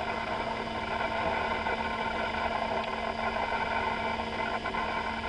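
Apple Macintosh SE/30 running: a steady hum from its cooling fan and spinning hard drive, with several steady tones over it.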